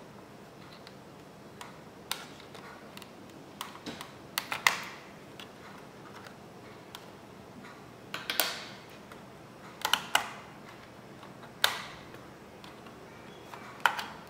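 Sharp plastic-and-metal clicks and snaps, in small clusters every second or two, as the retention clips of an HP dv6000 laptop's memory slots are spread and the SO-DIMM memory modules pop up and are lifted out of their sockets.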